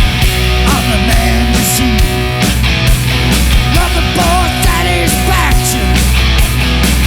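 Loud hard rock music with a steady drum beat and a wavering lead line over it.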